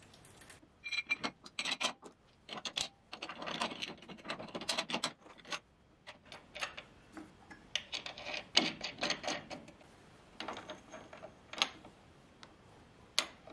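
Metal parts being handled and fitted on a lathe headstock's bearing housing: irregular clinks, clicks and short scrapes of bolts and clamps against the steel.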